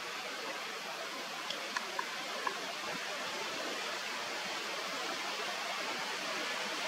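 Steady outdoor hiss of wind on the microphone, with a few faint short ticks between about a second and a half and two and a half seconds in.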